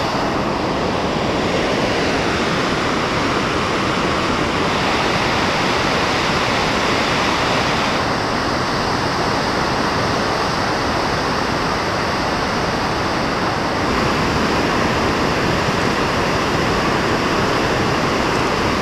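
The Marsyangdi river's white-water rapids, a steady loud rush of water.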